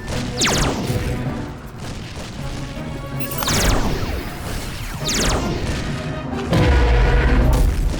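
Cartoon ray-gun zap sound effects from the Teddy Zapper: three quick sweeps that fall sharply in pitch, over background music, with a low boom near the end.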